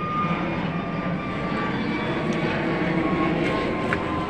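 Aircraft passing overhead: a steady engine rumble with a high whine that slowly drops in pitch.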